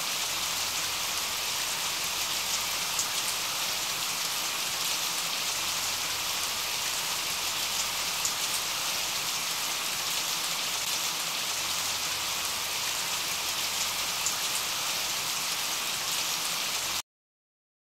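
Steady hiss of falling rain with scattered faint drop ticks, a rain-sound track of the kind used to mask subliminal audio, stopping abruptly just before the end.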